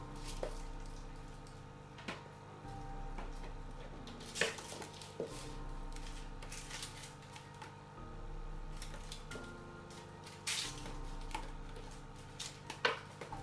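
Soft, sustained background music, with scattered sharp knocks and clatters from a cat scuffling with a carpeted sisal scratching post. The loudest knock comes near the end.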